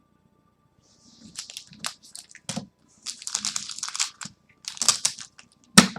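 Plastic foil trading-card pack wrapper crinkling and crackling in irregular bursts as it is handled and opened, with one sharp, loud crackle near the end.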